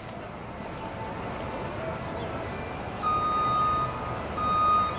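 Outdoor background noise, then from about three seconds in an electronic beep at one steady pitch, repeating about once a second.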